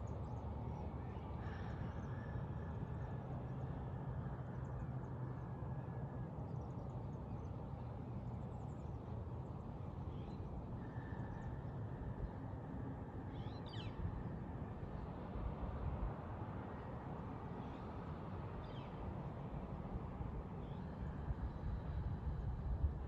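Outdoor morning ambience: a steady low background rumble, with brief, faint bird calls every few seconds.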